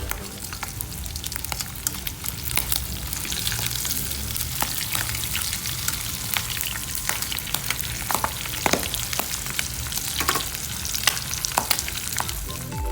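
Breaded pork chops frying in hot oil: a steady sizzle with scattered sharp crackles and pops.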